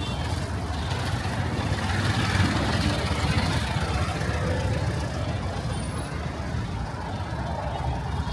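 Busy street traffic: cars, trucks and buses running past in a steady low rumble.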